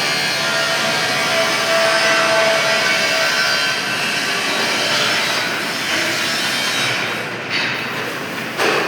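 Pipe-cutting lathe running and cutting metal: a loud, steady noise with a thin squealing tone in the first few seconds, and two short knocks near the end.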